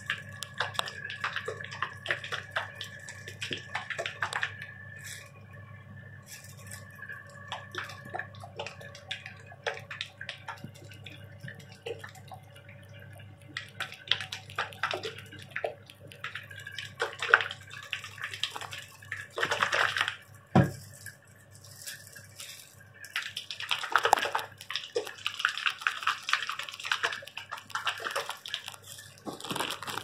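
Liquid sloshing and splashing inside a plastic hair-dye applicator bottle as it is shaken by hand in irregular bursts, mixing the colour with the developer. A steady low hum runs underneath.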